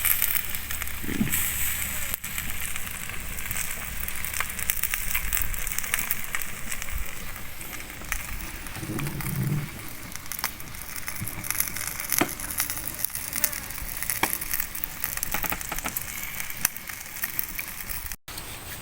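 Fish cooking: a steady hiss with frequent sharp crackles and pops.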